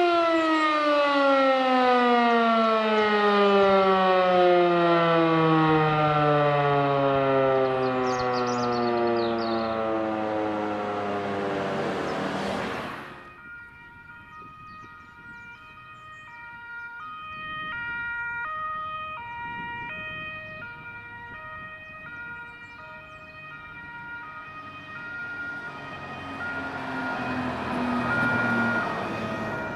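E57 electromechanical civil-defence siren winding down, its wail falling steadily in pitch for about thirteen seconds as the alarm ends. Then a fire engine's two-tone emergency horn sounds in an alternating pattern, with the truck's engine growing louder near the end as it approaches.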